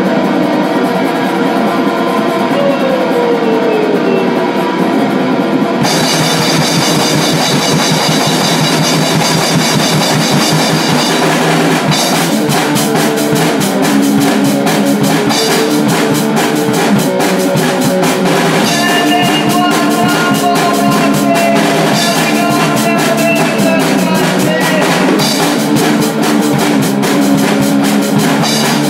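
Hardcore punk band playing an instrumental stretch: distorted electric guitar over a drum kit, loud and without vocals. The sound fills out about six seconds in, and the drumming turns fast and dense about twelve seconds in.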